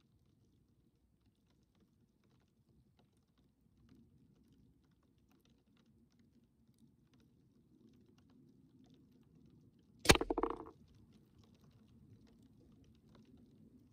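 A single shot from a Gamo Swarm Maxxim .22 break-barrel air rifle about ten seconds in: one sharp crack with a brief ring after it.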